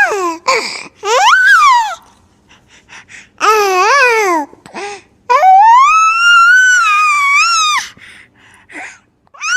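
A baby crying: several short wails that rise and fall in pitch, with gaps between them, then one long wail of about two and a half seconds from about halfway through, and a few faint whimpers near the end.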